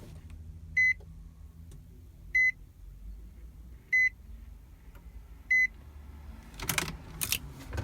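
Four short electronic beeps, each one high tone, evenly spaced about a second and a half apart. Near the end come a few clicks and rattles.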